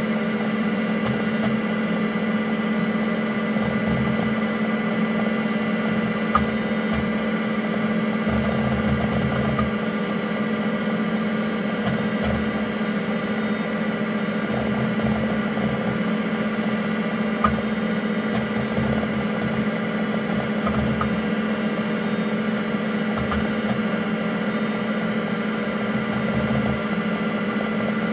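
An IBM PC AT 5170's fan and power supply hum steadily while its Seagate ST-4038 MFM hard drive works in irregular stretches of low head-seek noise, as during a disk defrag. Two sharp clicks come about six seconds in and again past the middle.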